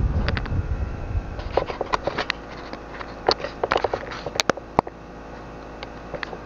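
Hanabishi orbit fan with a newly replaced motor, slowing down: the rush of its air on the microphone fades over the first couple of seconds. Scattered light clicks and ticks follow.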